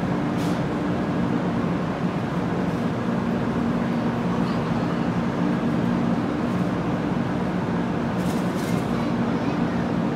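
500 series shinkansen creeping along the platform and stopping, with a steady low electric hum, over the murmur of a waiting crowd.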